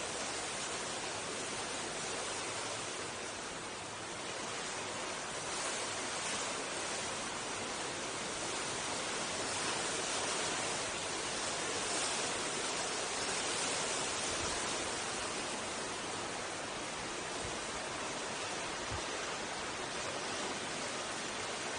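Steady rushing of strong wind, swelling slightly about ten to fourteen seconds in.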